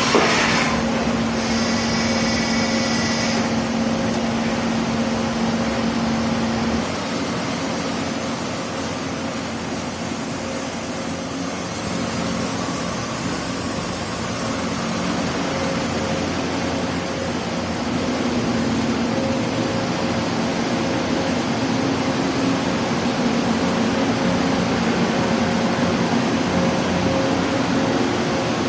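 Cincinnati Magnum HPC-1000XT horizontal machining center running: a steady mechanical hum with a held whine. Its low tone drops out about seven seconds in and shifts pitch later, and brief high tones sound about two seconds in.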